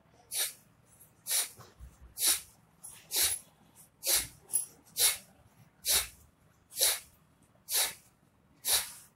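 Bhastrika breathing: ten sharp, forceful exhalations, about one a second, each a short hiss of breath thrown out, with quiet between.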